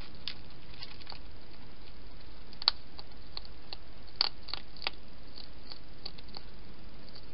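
Wild hedgehog feeding at a shallow dish: a scattering of short, crisp clicks and crunches, two louder ones about a third and a little over halfway through, over a steady hiss.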